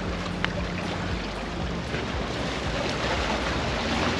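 Steady wind and sea noise on an open jetty, waves washing below, with wind rushing over the microphone. A faint low hum runs underneath, and there is a single short click about half a second in.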